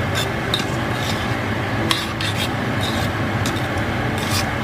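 Metal tongs scraping through sliced onions and garlic in a stainless steel skillet, with sharp clicks of metal on the pan at irregular moments over a steady sizzle as the onions soften.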